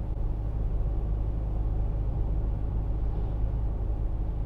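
Steady low rumble inside the cab of a Mercedes-Benz X-Class pickup on the move: its Renault-sourced diesel engine running along with tyre and road noise.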